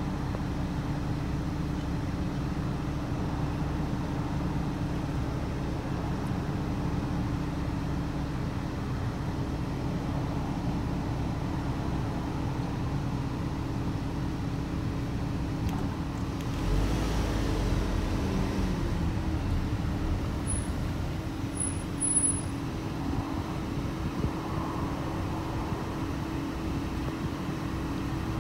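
A steady mechanical hum with one constant tone under it, like motor-vehicle or machinery noise. About two-thirds of the way through it swells for a few seconds with a deeper rumble and a falling pitch, as a vehicle passes by.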